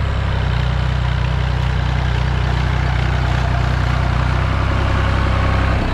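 Massey Ferguson 135 tractor engine running steadily while pulling against a line of tractors chained behind it, which barely move. The engine note changes abruptly just before the end.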